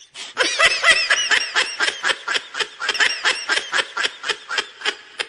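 A person laughing hard in fast, high-pitched peals, about five a second, starting after a brief pause.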